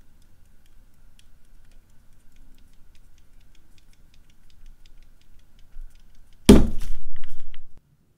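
Faint light clicks from a fingertip poking the plastic sphere of a magnetically levitating Death Star speaker, then, about six and a half seconds in, a loud clatter lasting over a second that cuts off suddenly.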